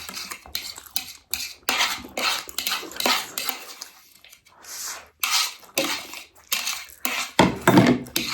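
Chopsticks clinking and scraping against a plate in a run of irregular short clicks and scrapes, chasing the last noodles around it.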